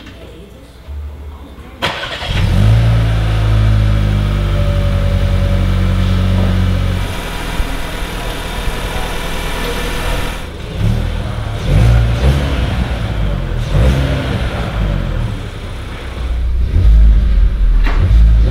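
VW T-Roc Cabrio's 1.5 TSI four-cylinder petrol engine starting about two seconds in and running at a raised idle, which settles lower about seven seconds in. It is then revved in several short blips.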